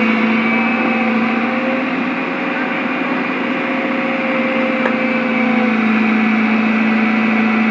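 Komatsu excavator's diesel engine running at a steady pitch, its tone shifting slightly about five and a half seconds in.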